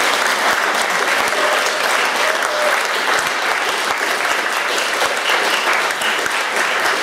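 Audience applauding steadily, many hands clapping at once at the end of a sung music hall act.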